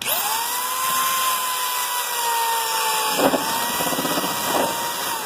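Power drill spinning up at once and running a 38 mm hole saw through the plastic panel, its whine sagging slightly under load, with a rougher stretch of cutting about three seconds in, and beginning to wind down at the very end.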